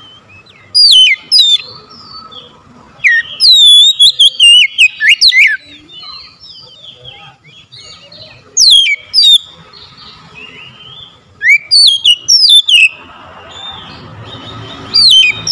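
Oriental magpie-robin singing: loud, sweeping whistled phrases that rise and fall sharply in pitch. The song comes in about five bursts, with softer chirps in the pauses between them.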